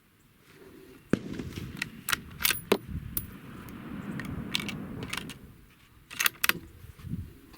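Irregular sharp metallic clicks and clinks over low rustling handling noise, starting about a second in, with a last cluster of clicks near the end.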